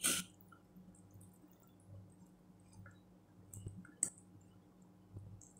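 Quiet eating sounds from a person eating by hand: faint chewing with small wet mouth clicks and smacks. There is a short breathy puff just after the start and a sharper click about four seconds in.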